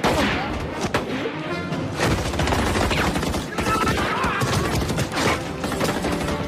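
Heavy battle gunfire from a war-film soundtrack: many overlapping shots from small arms, including a pistol and a Thompson submachine gun, with a music score underneath.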